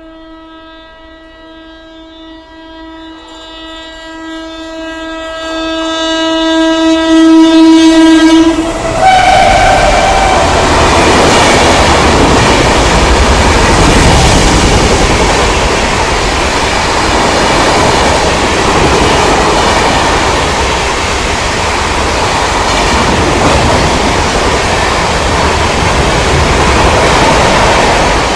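Indian Railways WAP-7 electric locomotive's horn sounding one long steady blast that grows louder as the train approaches and stops about eight and a half seconds in. The express then rushes past at speed: loud wheel and rail noise with the clickety-clack of the coaches.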